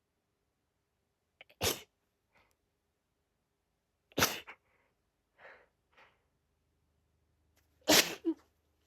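A woman sneezing in a rapid, repetitive bout: three sharp sneezes, the first under two seconds in, one around four seconds in and the last near the end, with fainter short sounds between them. The bout is the uploader's pre-migraine sneezing, which comes with little or no build-up before each sneeze.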